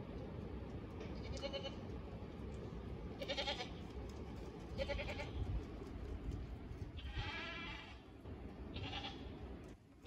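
Goat bleating five times, short wavering calls a second or two apart, the fourth one longer than the rest.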